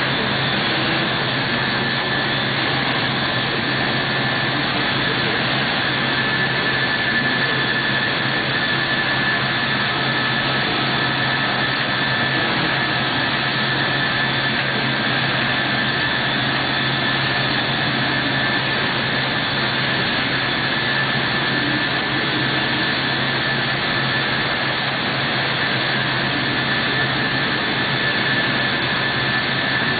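Biesse Skipper 100 CNC panel machine running while it works a panel: a steady, loud whirring hiss with a high-pitched whine and a low hum underneath, unchanging throughout.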